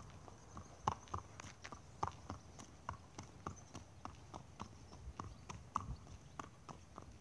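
Hanoverian gelding's hooves clip-clopping on a paved road at a walk, an even rhythm of about three hoofbeats a second.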